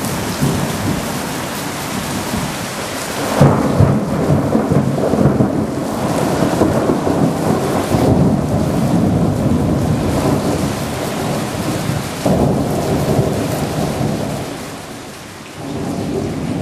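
Thunderstorm: rain falling steadily while thunder rumbles, with a sudden loud clap about three and a half seconds in that rolls on for several seconds, and another rise in the rumbling past the middle.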